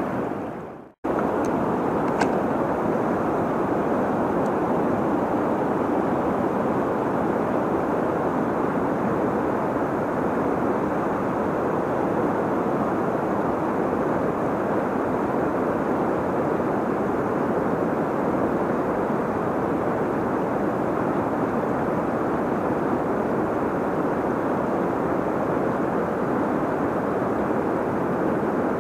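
Steady rushing of river water, an even noise at a constant level, starting after a brief cut about a second in.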